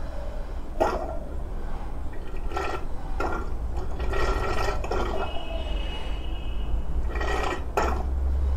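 Engine oil pouring and splashing during a motorcycle oil change, over a steady low hum.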